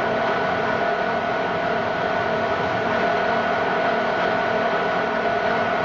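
Factory machinery running steadily: an even mechanical noise with a constant whine.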